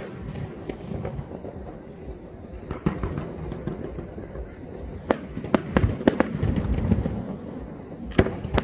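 Aerial firework shells bursting overhead: deeper booms rumble throughout, with a cluster of sharp cracking bangs about five to six seconds in and another loud bang near the end.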